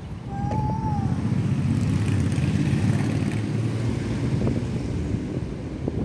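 A motor vehicle's engine going by, its noise swelling about half a second in and then holding steady. A thin chirp sounds near the start.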